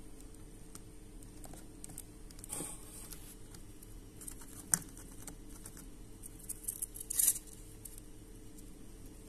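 A hamster scrabbling about on a cardboard floor among plastic toys: light scattered scratches and taps over a faint steady hum, with a sharp click a little before halfway and a louder rustling scrape late on.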